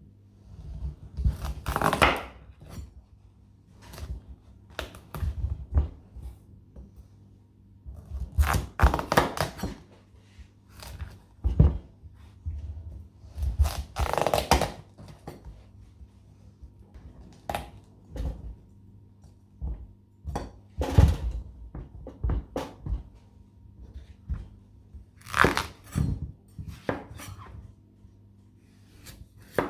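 Kitchen food preparation: irregular thunks and knocks on a work surface, with scraping and rustling between them, in groups every few seconds.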